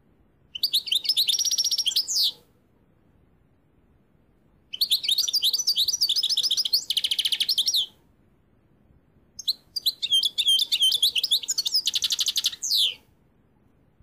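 A pet finch singing three bursts of high twittering song, each a few seconds long with short pauses between, and fast rolling trills toward the end of each burst.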